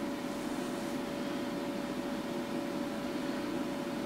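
Cooling fan of a Siglent SDS6204A oscilloscope running steadily while the scope boots: an even whirr with a faint constant tone.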